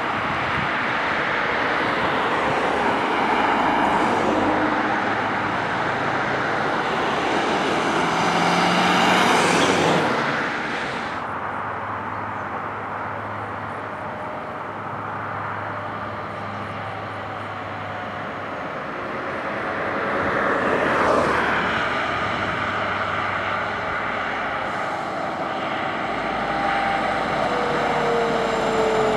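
Emergency vehicles driving by, a steady mix of engine and road noise that swells and fades. The sound changes abruptly about ten and twenty-one seconds in.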